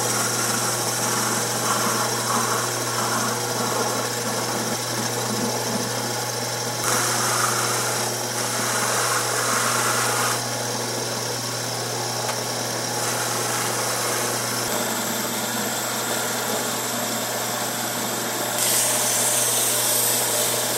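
Small metal lathe running steadily with a hum as its cutting tool turns a metal bar held in the chuck. The sound changes abruptly several times between cutting passes, and near the end abrasive paper is rubbed on the spinning part.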